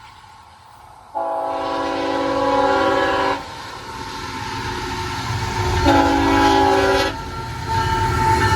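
Diesel locomotive's multi-chime air horn sounding two blasts for a grade crossing: a long one of about two seconds, then a shorter one of about a second. The low rumble of the approaching train builds underneath.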